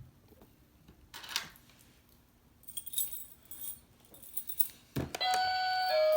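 The toy doorbell house's metal keys jangle and click on their ring, then there is a knock. About five seconds in, the toy's electronic doorbell starts a chime of clear, steady notes that step down in pitch.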